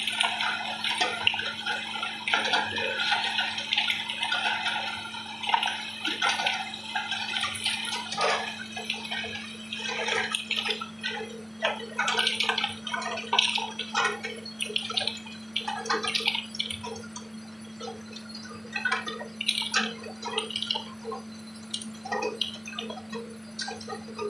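Tube ice machine running with a steady low hum while water rushes and splashes, thinning after about ten seconds to scattered drips and splashes.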